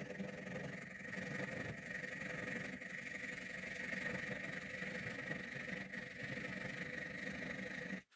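Fine-toothed hand saw cutting a slot into the end grain at the top of a wooden hatchet handle, with quick, steady strokes and a squealing edge to the cut. The slot is the kerf for the handle's wedge.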